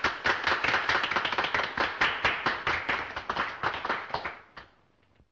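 A few people clapping by hand, a quick uneven patter of claps that thins out and fades away near the end.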